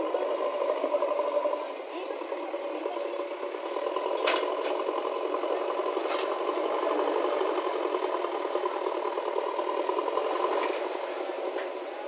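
JCB backhoe loader's diesel engine running steadily under load as the machine manoeuvres with a full front bucket, with rattling from the machine and one sharp knock about four seconds in.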